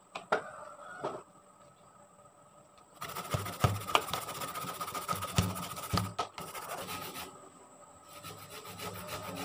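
Peeled raw cassava root grated by hand on a metal hand grater: a rasping scrape of repeated strokes, sparse at first and then fast and steady from about three seconds in, with a few sharp knocks along the way.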